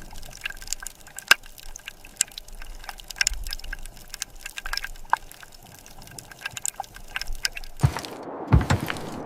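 Underwater ambience sound effect: scattered clicks and crackles over a faint low rumble, with a louder whoosh and a few heavy thumps near the end.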